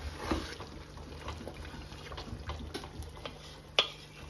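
Pot of stew simmering on the stove, with many small irregular bubbling pops and one sharper click near the end.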